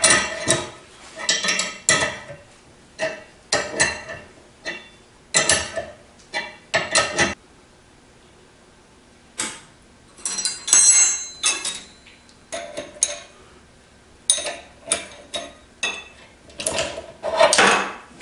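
Steel hand tools clinking and clanking on a bearing splitter puller: a ratchet wrench and an open-end wrench working the puller's nuts and forcing screw. The metal knocks come in short irregular clusters, some ringing, with a pause of about two seconds midway.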